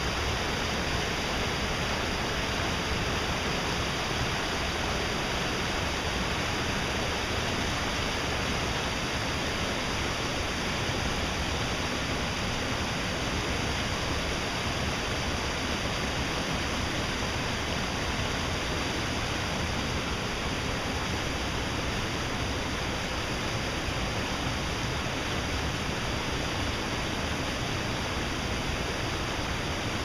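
Small river waterfall: water rushing steadily over a low rock ledge and through the rapids below it.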